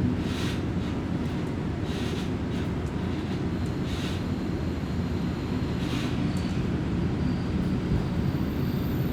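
Kominato Railway diesel railcar running, heard from inside the cabin: a steady low rumble of engine and wheels on the rails, with brief hissing swishes every second or two.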